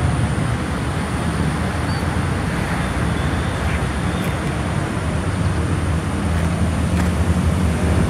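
Steady low rumble of road traffic, without distinct events.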